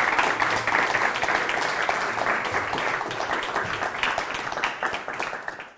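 Live studio audience applauding, a dense patter of many hands clapping that fades out near the end.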